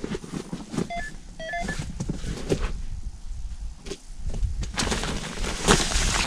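Electronic carp bite alarm giving a few short beeps, signalling a bite on the line, among knocks and rustling; a louder rushing noise rises near the end.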